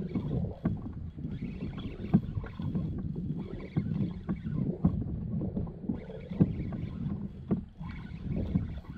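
Water slapping and lapping against a fishing kayak's hull, with irregular knocks and clicks over a steady low rumble.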